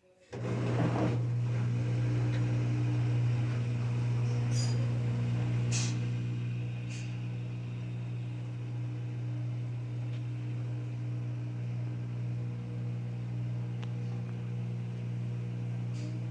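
Washing machine starting its spin: the motor comes on abruptly just after the start and runs with a steady low hum, with a few sharp clicks in the first seven seconds. Near the end a rising whine begins as the drum speeds up.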